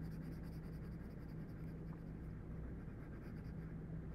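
Pencil scratching on paper in quick repeated shading strokes over a steady low hum; the strokes thin out near the end.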